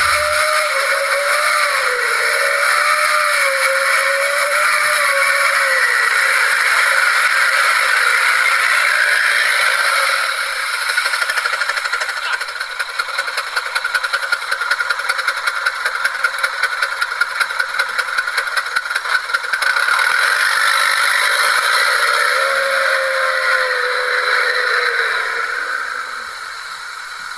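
Truck engine running and revving as it works through deep mud, its pitch wavering up and down. A fast rattle sets in about twelve seconds in and stops about seven seconds later.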